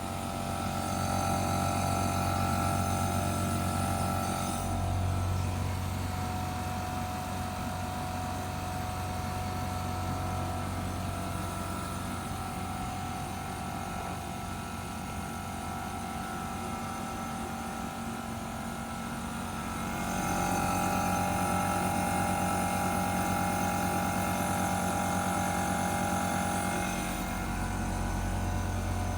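Changhong CSC-09Y3 air conditioner running: a steady low hum with higher whining tones, changing in strength about 5 seconds in and again about 20 seconds in. Its outdoor fan motor is dead, so the compressor runs without cooling airflow, overheating and overloading.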